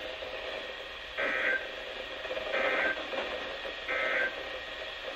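Emergency Alert System end-of-message data signal: three short bursts of two-tone warbling data, each about a third of a second and about a second and a half apart, marking the end of the tornado warning, over a steady broadcast hiss.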